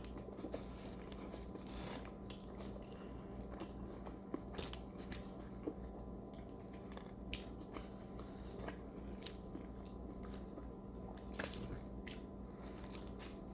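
A person chewing a burger close to the microphone: faint wet mouth sounds with scattered soft clicks and smacks every second or two.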